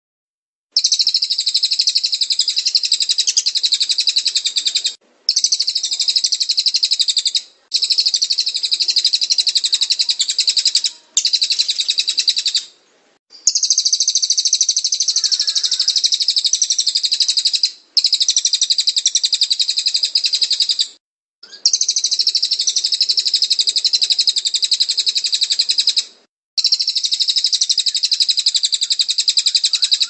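Crested jay (cililin) calling with a rapid, high, rattling trill, in bouts of two to five seconds broken by short pauses.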